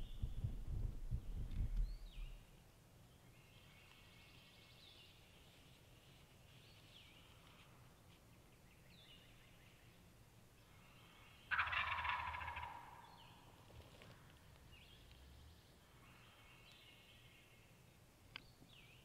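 A wild turkey gobbler gobbling once, a single loud gobble of about a second and a half near the middle, over faint high chirps of songbirds. A low rumble fills the first two seconds.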